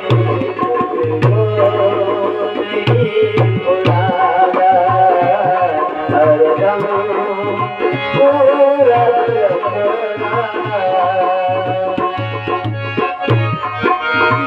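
Instrumental passage of a Hindi devotional ghazal: tabla keeps a steady rhythm under a melodic instrument playing a wavering tune.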